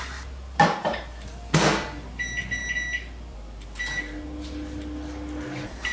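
Panasonic microwave oven: two clunks as the bowl goes in and the door shuts, then a run of short high keypad beeps and one more beep. The oven then starts up with a steady low hum, heating for 30 seconds at full power.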